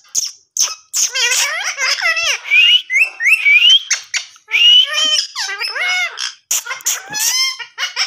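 Indian ringneck parakeet chattering: a quick run of chirps, rising whistles and clicks.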